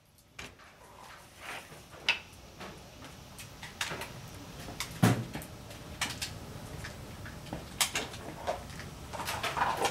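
Sharp bangs and knocks of gunfire at a shooting range, muffled and at irregular intervals, the loudest about five seconds in.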